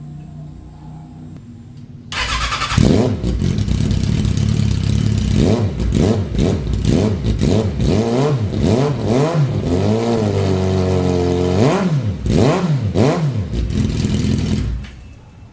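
Suzuki Bandit 650 inline-four motorcycle engine starting up about two seconds in, then idling and revved in a series of quick throttle blips, with one longer rev in the middle, before it drops away near the end.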